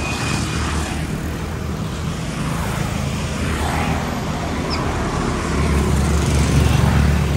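Motorbike engine droning steadily, with road and traffic noise around it, while riding along a city street; the drone gets louder about five and a half seconds in.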